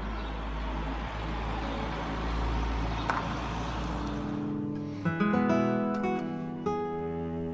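A steady noise with a low rumble and hiss, with a single click about three seconds in. About four and a half seconds in the noise stops and background acoustic guitar music plays clearly.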